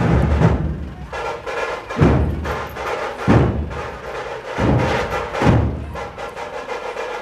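Nashik dhol drums struck in slow, heavy booming beats, roughly one every second and a quarter, with a steady high tone held over them from about a second in.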